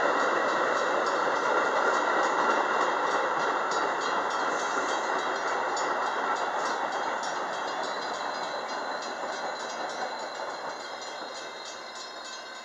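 Metra commuter train's bilevel passenger cars rolling past and slowing, the wheel-on-rail noise fading steadily. Regular clicks come from wheels over rail joints, and a faint high squeal joins in the second half.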